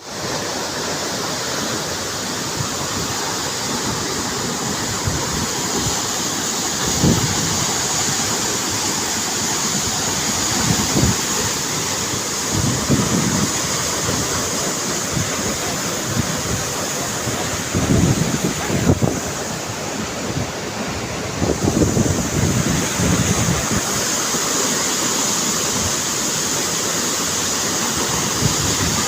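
Waterfall rushing steadily, with gusts of wind buffeting the microphone now and then.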